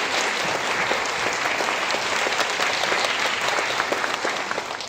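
Concert audience applauding, a dense steady clapping that begins to thin and fade near the end.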